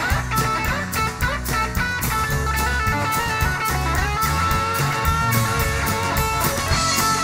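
Live rock band playing an instrumental passage: a lead electric guitar plays held and bending notes over a steady drum beat, bass guitar and strummed acoustic guitar.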